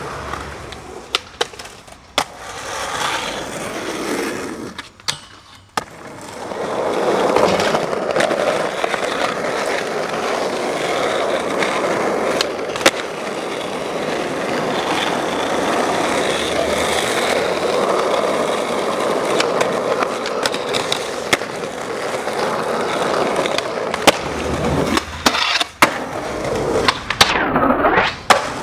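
Skateboard wheels rolling over pavement in a long steady run, with sharp clacks from the board's pops and landings scattered throughout.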